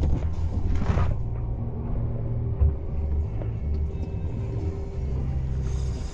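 Boat engine idling: a steady hum over an uneven low rumble, with a brief knock about a second in.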